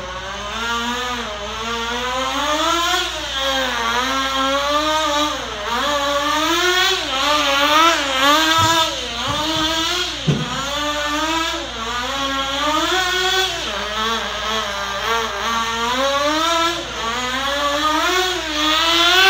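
Small nitro RC engine of a 1/16 Sportwerks Chaos buggy running hard on the track. It revs up and backs off over and over, the pitch rising and falling every second or two. There is a sharp knock about ten seconds in.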